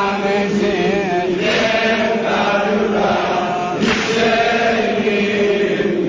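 Male voices chanting a Shia mourning eulogy (maddahi) for Abolfazl, with long held notes and wavering ornaments on the melody.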